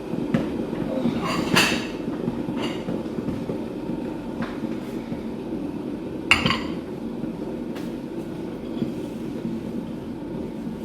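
Two sharp clinks of glass jar or kitchenware being handled, about one and a half and six seconds in, over a steady low rumble.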